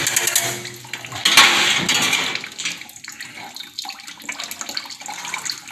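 Warm water running from a faucet and splashing into a stainless steel sink, with a wire whisk rattling fast in a pitcher of powdered milk for a moment at the start. A louder rush of water about a second and a half in.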